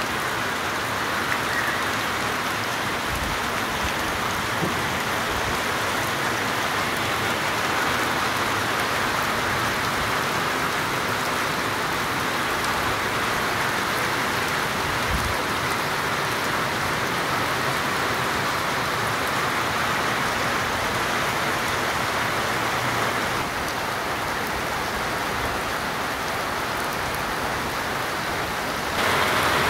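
Heavy rain falling steadily: an even, unbroken hiss of downpour on the ground and nearby surfaces, a little softer for a few seconds about three-quarters through.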